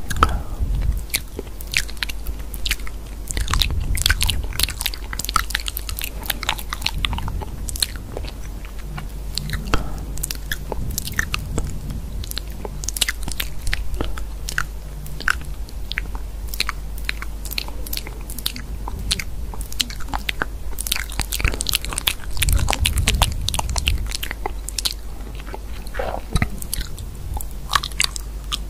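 Close-up crunchy chewing and biting: a dense, irregular run of crisp crunches.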